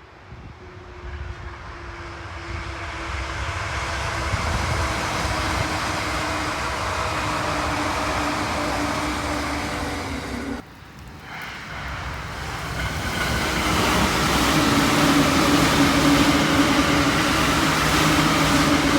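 Two Joban Line express trains heard in turn as each approaches at over 120 km/h. The running noise of each grows steadily louder, carrying a steady hum that sinks slightly in pitch. The first sound is cut off abruptly about ten seconds in, and a second, louder train builds up toward the end.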